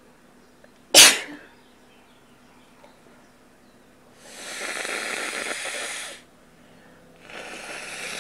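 A single sharp, loud sneeze about a second in, followed by a person blowing their nose twice, each blow a long noisy rush of air lasting a second or two, the second starting near the end.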